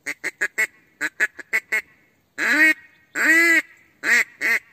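Mouth-blown duck call sounded in a series of quacks: two quick runs of four short quacks, then two long drawn-out quacks and two short ones near the end.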